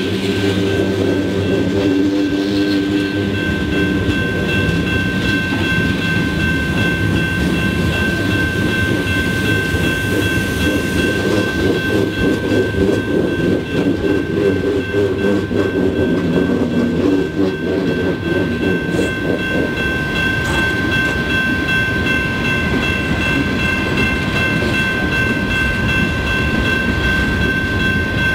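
Freight cars rolling past on steel wheels: a steady rumble with clatter over the rail joints. A grade-crossing bell rings over it in steady high tones.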